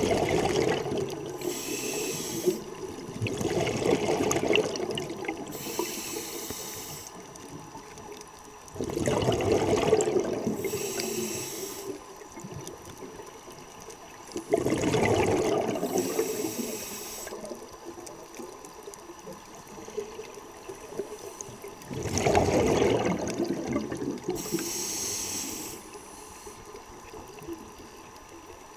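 Scuba diver breathing through a regulator underwater: a short hiss on each inhale, then a louder rush of exhaled bubbles, about five breaths, one every five to six seconds.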